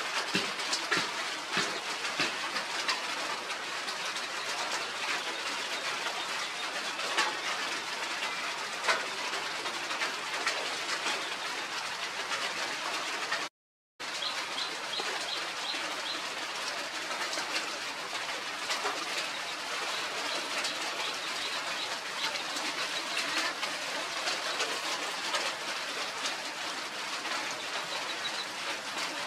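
Birds chirping and cooing over a steady outdoor background hiss, with many short high chirps throughout. The sound cuts out for a moment about halfway through.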